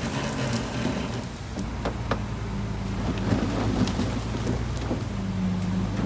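Heavy diesel earthmoving machinery running at a steady engine note, with scattered clattering and crackling of soil and stones.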